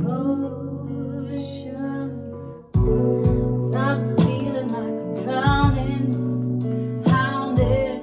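A woman singing freestyle into a handheld microphone over a recorded instrumental beat. About three seconds in, the music drops out for a moment and comes back fuller, with deep bass notes.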